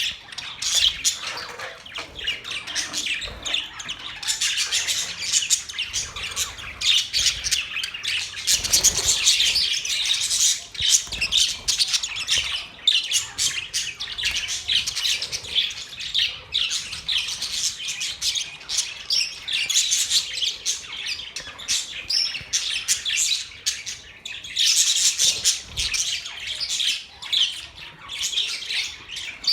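A group of budgerigars (budgies) chirping, a dense run of rapid, overlapping high calls that never lets up.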